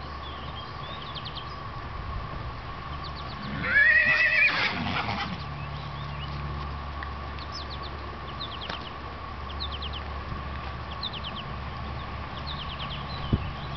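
A horse whinnying once, about four seconds in: a loud, quavering call lasting about a second and a half.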